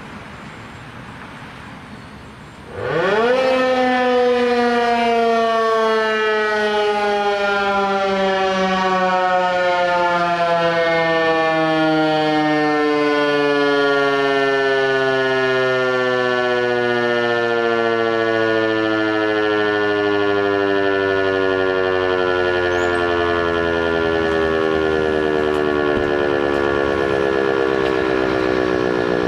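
Emergency alert siren: after about three seconds of low hiss it starts suddenly, sweeps quickly up in pitch, then slides slowly and steadily down over the next twenty-odd seconds, with a buzzy tone of many overtones.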